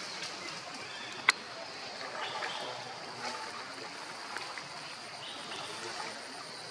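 Stream water running and trickling, with a single sharp click a little over a second in.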